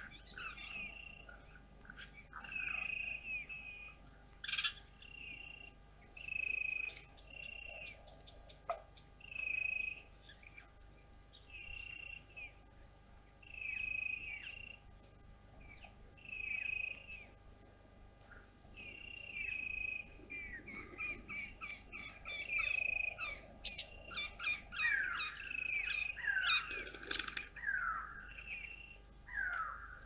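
Wild birds calling in bush: one bird repeats a short high note every second or two, over other birds' chirps and fast high trills, which grow busier about two-thirds of the way through.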